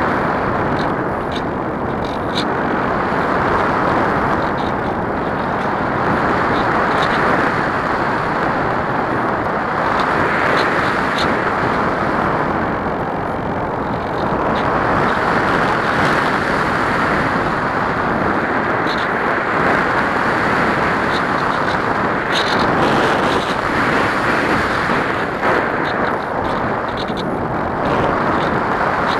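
Steady rush of air over a camera riding on a ParkZone Radian RC glider in flight, swelling and easing every few seconds, with a few faint ticks.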